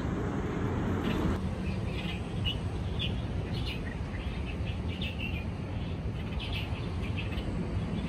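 Small songbirds chirping, short high calls repeated irregularly several times a second, over a steady low background rumble.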